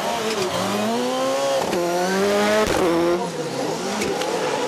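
Rallycross car engine accelerating hard, its note rising and dropping back at two quick upshifts, then easing off for a corner and picking up again near the end.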